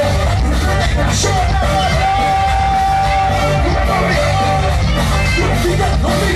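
Loud dance music over a sound system with a heavy bass beat and a long held note, with some shouting from the crowd.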